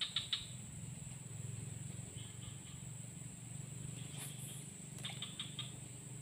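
Steady high-pitched insect drone in tropical streamside vegetation, with short runs of rapid ticking chirps at the start, about two seconds in and again about five seconds in.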